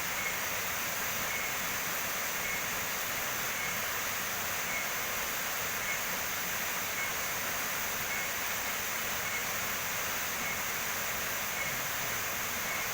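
Waterfall rushing in a steady, even hiss, with a faint short high chirp repeating about once a second.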